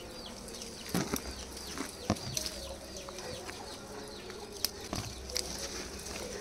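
Small birds chirping over and over in short falling chirps, with a few sharp knocks about a second, two seconds and five seconds in.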